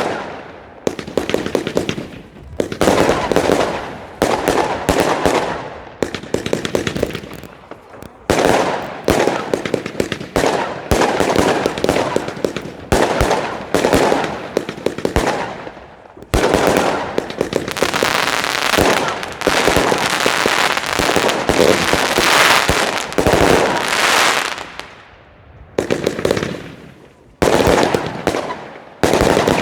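Legacy Sledgehammer 300-shot firework cake firing: dense, rapid strings of bangs and crackle in volleys of one to a few seconds, each dying away briefly before the next.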